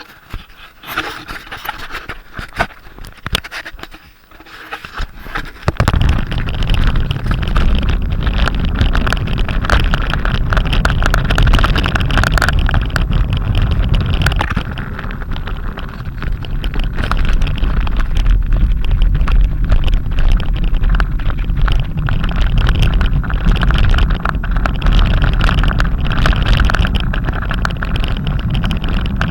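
Wind buffeting the microphone in a windstorm. A heavy low rumble with hiss above it sets in suddenly about six seconds in and keeps going; before that it is quieter, with uneven gusts and scattered clicks.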